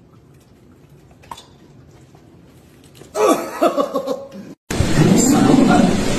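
Quiet room tone, then about three seconds in a run of short, loud dog vocalizations with falling pitch. After a brief cut, a loud steady noisy sound begins.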